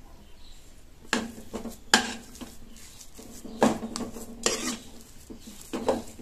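White plastic spatula scraping and pressing a thick, sticky banana-semolina-jaggery mixture around a nonstick pan, in about six separate strokes with pauses between.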